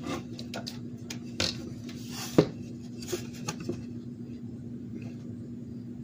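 Wires and a plastic graphics-card power connector being handled: scattered small clicks and rustles as wire ends are worked into the connector, the sharpest click about two and a half seconds in, over a faint steady hum.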